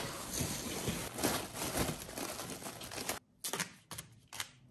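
Foil-jacketed flexible duct crinkling and rustling as it is handled, with a few short light clicks near the end.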